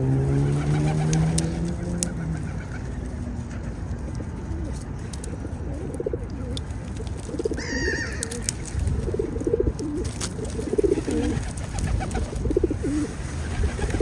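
Pigeon-family birds cooing in repeated low phrases, with a short higher bird call about halfway through. A low hum rises slightly in pitch over the first two seconds.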